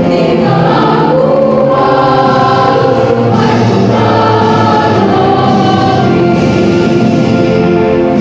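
Girls' school choir singing in several parts in harmony, holding long notes.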